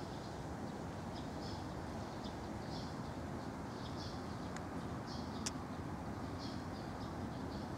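Small birds chirping in short repeated phrases over a steady low rumble of distant city traffic, with two sharp clicks about halfway through.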